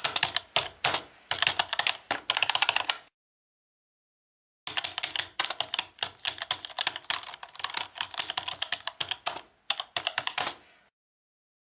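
Rapid typing on a computer keyboard in two runs, about three seconds and then about six seconds, with a dead-silent break between them.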